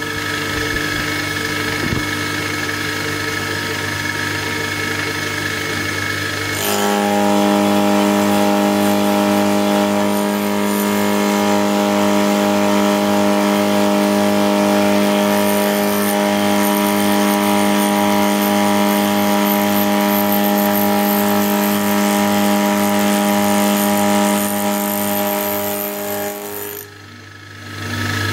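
Old milling machine cutting cold rolled steel with a homemade two-insert APMT carbide cutter, running steadily. About six and a half seconds in, the sound turns louder and takes on a strong ringing tone with a regular low pulsing. It falls away briefly near the end.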